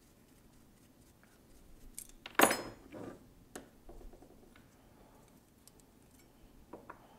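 Steel flintlock lock parts and hand tools clinking on a wooden workbench while the lock's mainspring, held compressed in a spring vise, is taken off. One sharp metallic clink about two and a half seconds in, then a few lighter clicks.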